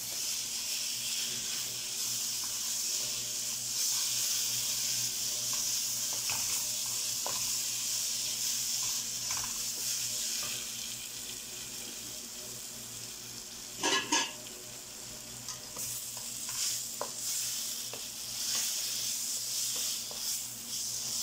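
Onion, spice and ground-tomato masala sizzling in a non-stick kadai while a wooden spatula stirs and scrapes it, with one short louder knock about two-thirds of the way through. The tomato is being fried down into the masala.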